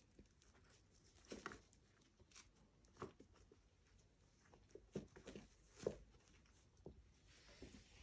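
Near silence with faint scattered taps and rustles as miniature pinscher puppies and their mother move about in a fabric dog bed.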